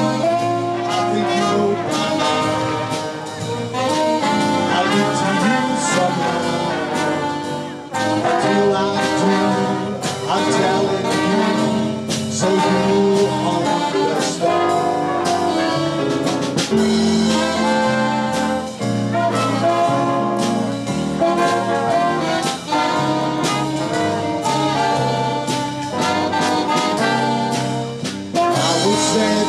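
A community band of trombones, saxophones and trumpets playing an instrumental piece together live, with a steady beat.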